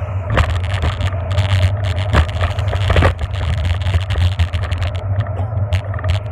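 Wind rushing over the microphone of a camera on a moving bicycle, a steady low rumble, with frequent clicks and rattles from the bike and mount jolting over the road surface.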